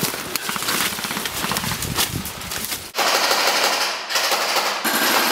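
Footsteps and rustling through leaves and undergrowth, then from about three seconds in an airsoft rifle firing rapid full-auto bursts, three in quick succession with short breaks.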